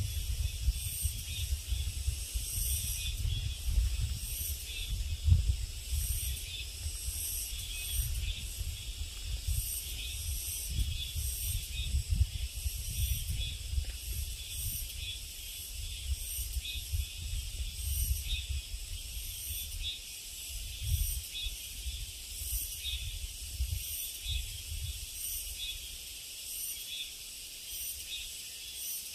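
Insects calling in high-pitched, regularly repeating pulses, over a low, uneven rumble.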